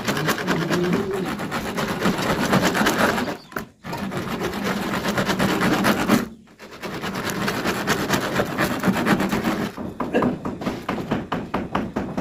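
Two hacksaws sawing crosswise slots into a PVC pipe with rapid overlapping back-and-forth strokes, cutting the strainer slots for a hand-bored tube well. The sawing stops briefly twice.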